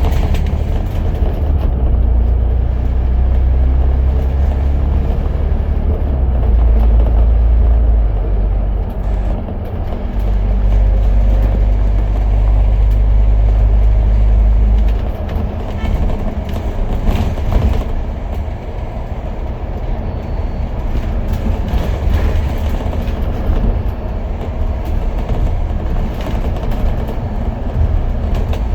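Interior noise of a moving Citybus bus: engine and road rumble, with a heavy low drone that eases about halfway through and some rhythmic clatter.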